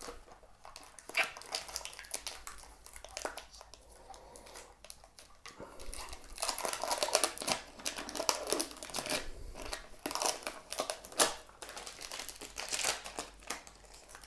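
Packaging crinkling and rustling in irregular bursts as a small Android TV box is unwrapped and lifted out, busiest in the second half.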